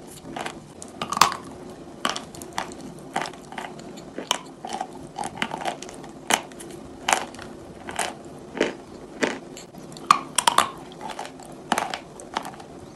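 Close-up biting and chewing of a chunk of pressed chalk: sharp, crisp crunches come every half second to a second, with softer grinding chews between them.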